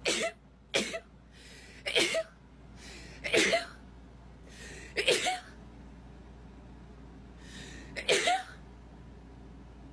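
One person sneezing repeatedly in a rapid sneezing fit: six short, sharp sneezes at uneven intervals, the longest gap before the last, with a hissing in-breath before some of them.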